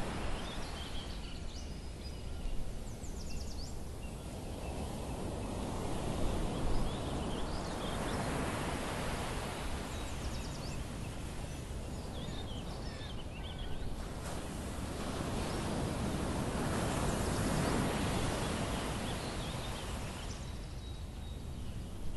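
Wind buffeting a small camera's microphone, rising and falling in gusts, with birds chirping now and then.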